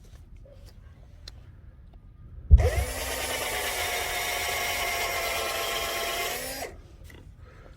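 Electric drill spinning up with a knock and a brief rising whine, then running steadily for about four seconds before stopping, boring a hole in peach tree wood for drill grafting.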